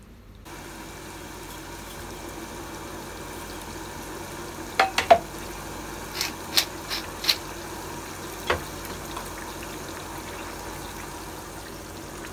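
Wooden spatula stirring a thick lentil and lamb stew in a saucepan as it simmers down on low heat, over a steady hiss. Around the middle come a run of sharp knocks, about eight, of the spatula against the pot.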